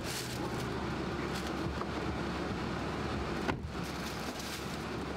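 Steady outdoor vehicle rumble, then a car door shuts with a single thud about three and a half seconds in, after which the background is a little quieter and more muffled.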